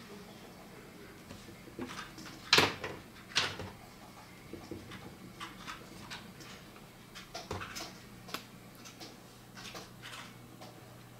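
Scattered light taps and clicks of work at a desk, with two louder knocks about two and a half and three and a half seconds in.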